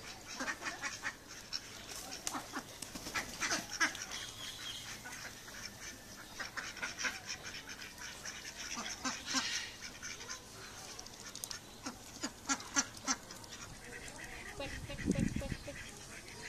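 A flock of domestic ducks quacking and chattering in many short, overlapping calls, with a brief low rumble near the end.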